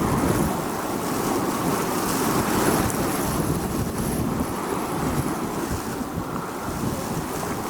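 Strong desert windstorm wind, blowing steadily in gusts that swell and ease over a few seconds.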